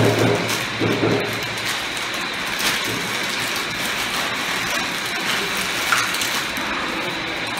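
Crinkling and rustling of a thin plastic bag as small plastic toilet-cistern fittings are unwrapped from it, with a few small clicks of the parts.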